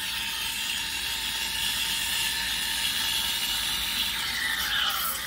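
ECM Mechanika V Slim steam wand hissing steadily into milk in a stainless steel pitcher, frothing it. Its tone shifts lower near the end.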